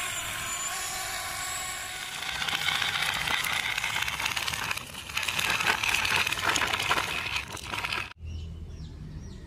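Small electric motors and plastic gears of toy RC construction vehicles whirring. A steady whine comes first, then from about two seconds in a louder, rougher whir that cuts off abruptly near the end.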